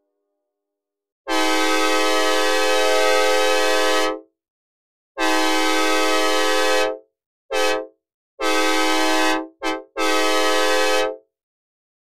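Synthesized recreation of a Nathan K5LA five-chime locomotive air horn, dry with no reverb, made in FL Studio's Wasp synthesizer. It sounds two long blasts, a short one, then a long blast broken by a brief stutter near the end. Each blast is a steady chord that starts and cuts off cleanly.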